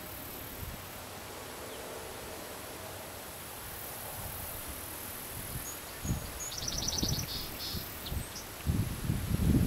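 Outdoor lawn ambience: a steady high insect hiss, with a short fast chirping trill about six and a half seconds in. Low rumbling thumps on the microphone come a few times, loudest near the end.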